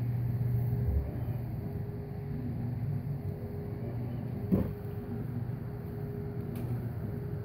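Domestic cat purring close to the microphone while being petted, a low steady rumble. A brief thump about four and a half seconds in.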